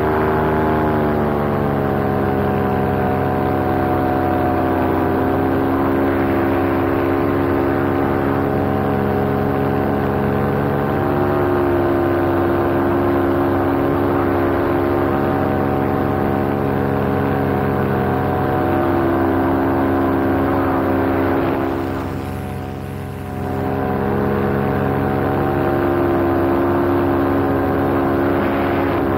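Two-stroke paramotor engine and propeller running steadily in flight, the pitch drifting slightly up and down. About three-quarters of the way through, the engine is briefly throttled back and the sound dips before picking up again.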